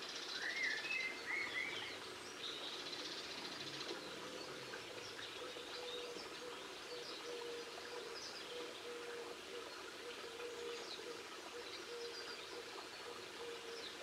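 Small garden songbirds calling and twittering: a few louder wavy whistled notes in the first two seconds, then quick high chirps scattered throughout. A faint steady hum comes in about four seconds in.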